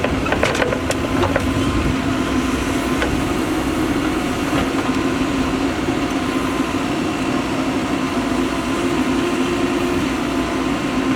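Mahindra EarthMaster SX backhoe loader's diesel engine running steadily at work, with a few sharp knocks in the first second or so.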